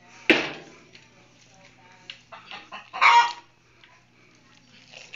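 Chickens squawking: a loud harsh squawk about a third of a second in and another about three seconds in, with fainter clucks between.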